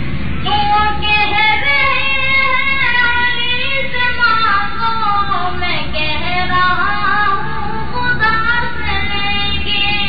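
A high voice singing an unaccompanied Urdu naat in praise of the Prophet, with long held notes and ornamented glides in the melody, over a steady low hum.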